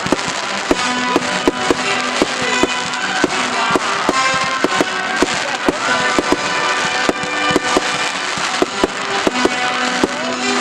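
Fireworks going off in quick, irregular sharp cracks, several a second, over music with held notes.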